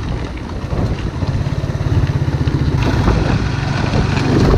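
Motorcycle engine running at low road speed under the rider, a steady low pulse, getting louder about two seconds in.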